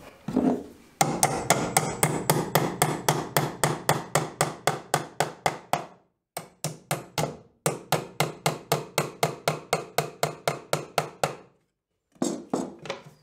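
Hammer nailing an electrical outlet box to a wooden stud: rapid, even blows about four or five a second, in several runs broken by short pauses.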